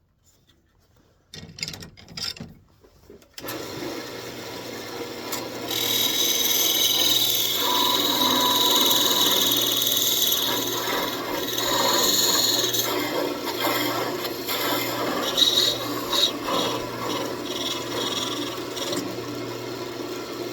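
Wood lathe starting up and running with a steady hum, then a turning tool scraping into the spinning walnut blank with a loud rasping hiss from about six seconds in. The cut eases off after about seven seconds and goes on lighter and more broken.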